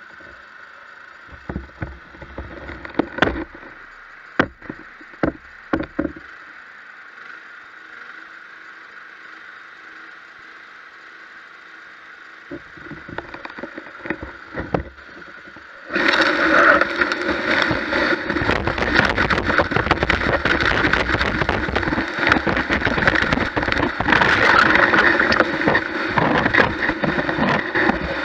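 Gutter vacuum running with a steady whine, its pole-mounted nozzle knocking against the gutter a few times. About sixteen seconds in, a sudden loud rushing, crackling noise begins as the nozzle sucks wet moss and leaf debris out of the gutter.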